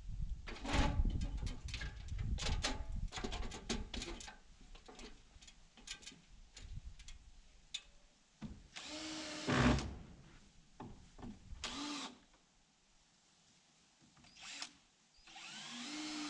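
Knocks and rattles of an aluminium ladder being climbed, then a power drill running in four short bursts, its motor pitch rising as it spins up. The first run, about nine seconds in, is the longest and loudest.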